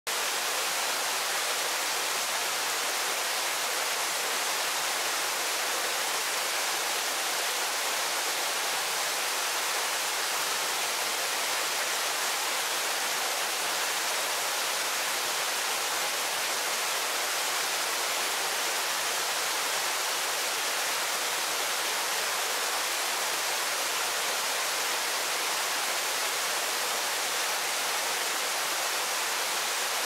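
Waterfall: water falling and splashing onto rock and a pool, a steady, even hiss with little low rumble.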